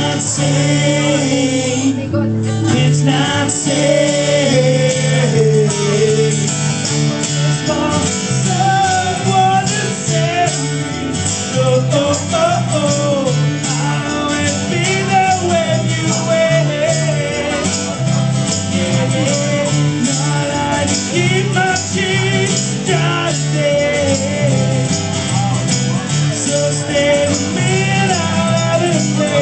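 Live band playing an upbeat guitar rock song: strummed guitars, bass and drums at a steady beat, with a lead melody wandering over the top.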